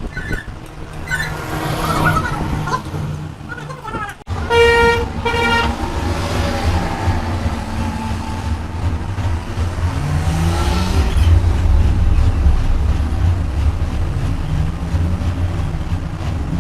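Two short blasts of a vehicle horn about four and a half seconds in, over the steady low rumble of a truck engine running.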